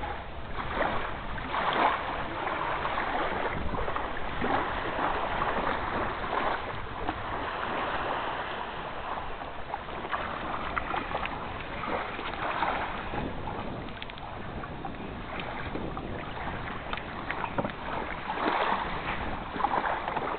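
Water sloshing and splashing around a Zodiac inflatable boat as it is launched, an uneven rushing noise that swells and fades.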